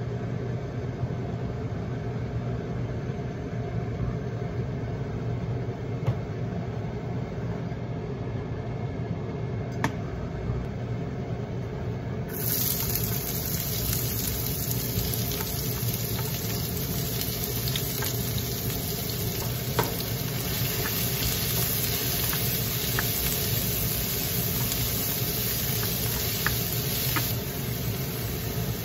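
Diced onion tipped into hot oil in a wok, sizzling, then stirred with a wooden spatula, with small scraping clicks. Before the onion goes in, only a steady low hum is heard while the empty pan heats.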